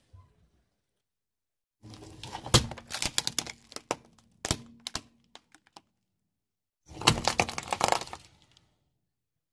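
Car tyre rolling over and crushing brittle objects on concrete: a run of sharp cracks and snaps starting about two seconds in, then a pause and a denser burst of crunching as the tyre grinds over a pile of small hard white pellets.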